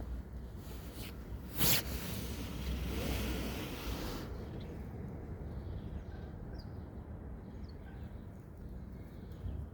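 Outdoor city background: a steady low rumble with a hissing noise that drops away after about four seconds, and a sudden loud burst of noise about two seconds in. A few faint, short, high chirps follow in the quieter second half.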